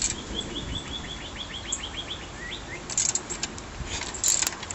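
A songbird singing a quick trill of about a dozen repeated chirps that drops lower at the end. A few sharp clicks follow near the end.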